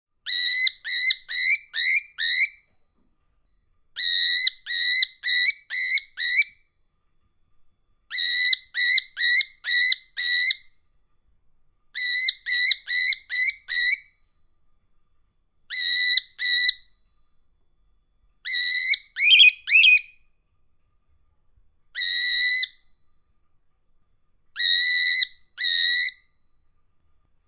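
Cockatiel calling: short whistled notes, each rising at its end, in quick runs of two to six, with a run about every four seconds and silence between.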